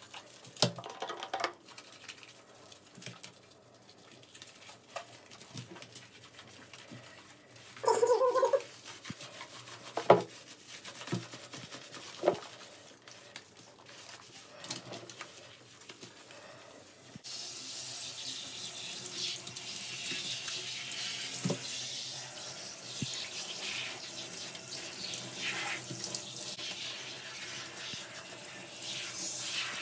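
Handheld shower head spraying water steadily onto a wet West Highland white terrier and the shower tray, switched on a little past halfway. Before that it is mostly quiet, with a few small knocks and one short pitched sound.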